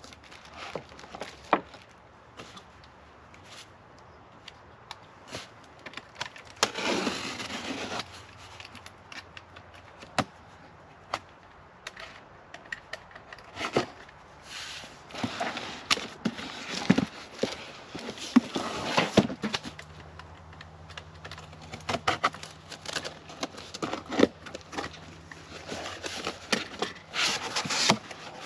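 Unboxing sounds: packaging handled by hand, with scattered clicks and light knocks, scraping, and several longer bouts of crinkling wrap.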